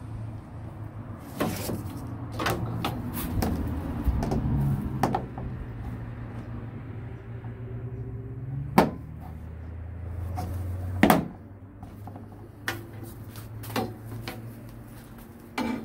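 Rubber edge trim being pressed and worked onto a pickup tailgate's top edge by hand: a series of separate knocks and clicks, the loudest about 9 and 11 seconds in. A low steady hum runs underneath.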